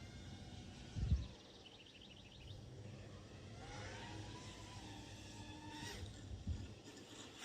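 Outdoor ambience with birds chirping and the whine of a distant FPV quadcopter's motors rising and falling in pitch through the middle, with a low thump about a second in.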